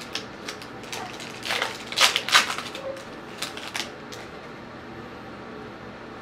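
Crinkling and tearing of a small foil Pokémon card pack being opened by hand, a run of sharp crackles that is loudest about two seconds in and stops after about four seconds.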